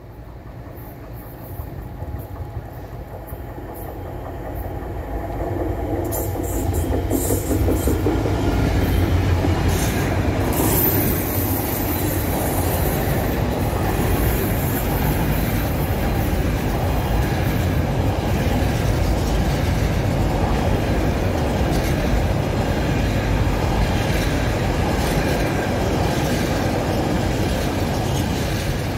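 Diesel-hauled container freight train passing at speed: the locomotive's engine and rumble build up to their loudest about eight to ten seconds in, followed by the steady rumble and clickety-clack of the container wagons going by, with a brief high squeal around ten seconds in.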